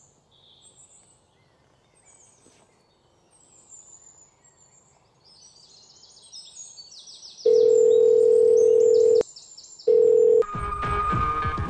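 Birds chirping, then a loud steady telephone ringing tone heard in the earpiece as a call is placed: one long tone of under two seconds, a short break, and a brief second tone. Music comes in near the end.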